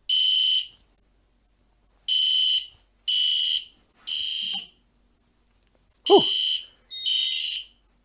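Electronic horn of an Edwards (EST) Genesis GL horn strobe sounding the temporal three-pulse fire-alarm evacuation pattern: groups of three short, high beeps about a second apart, with a pause of about a second and a half between groups. A brief falling chirp sounds about six seconds in.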